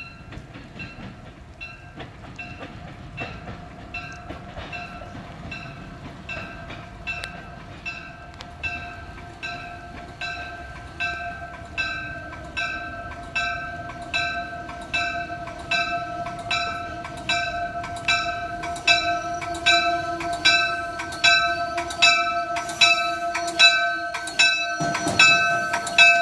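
Amtrak Keystone train pulling into the station, its warning bell ringing steadily at about one and a half strokes a second and growing louder as it comes near. A steady tone and a low rumble from the moving train rise along with it.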